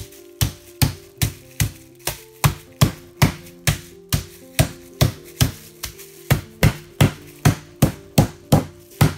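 Meat mallet pounding a split whole chicken through a plastic bag on a plastic cutting board, flattening it. The blows are sharp and evenly spaced, about two and a half a second, with background music underneath.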